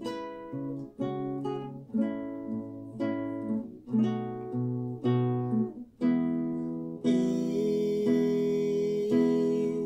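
Nylon-string classical guitar with a capo, fingerpicked solo as a song's instrumental introduction: a chord or note picked about once a second, then from about seven seconds in fuller chords that ring on longer.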